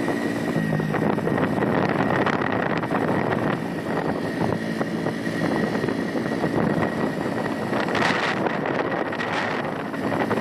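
Automatic motor scooter running at cruising speed, its engine drone mixed with wind rushing over the microphone, and a thin steady high whine throughout.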